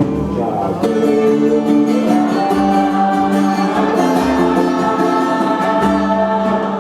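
Acoustic guitar strummed as accompaniment to a slow sung melody of long held notes.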